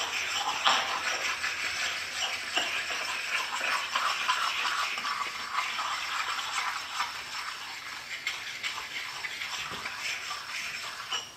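A hand scrubbing and wiping the wet cast-iron top of a large rotary table to clean off degreaser and grime. It makes a steady scratchy rubbing with small clicks and knocks as the hand passes over the T-slots, growing quieter toward the end.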